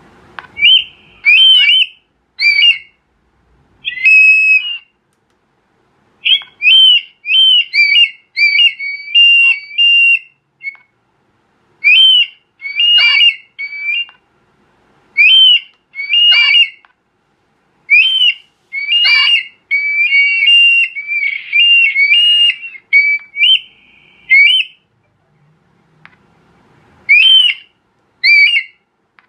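Electronic duck caller playing a recorded bird call through its camouflage horn loudspeaker: loud, short whistled notes repeated in irregular runs, with a pause of about two seconds near the end before a few more notes.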